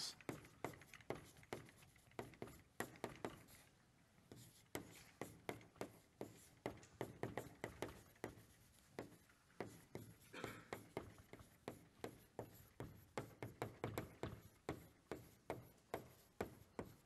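Chalk writing on a blackboard: a faint, irregular run of short taps and scratches as letters are stroked out, pausing briefly a couple of times.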